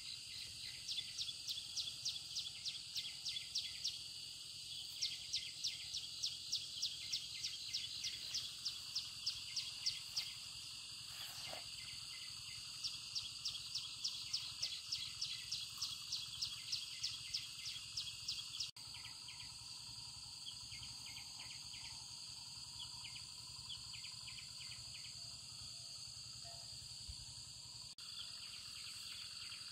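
Insects singing in a chorus: a steady high hum, with a rhythmic chirping at about three pulses a second over it. The chirping stops suddenly about two-thirds of the way in, leaving the steady hum.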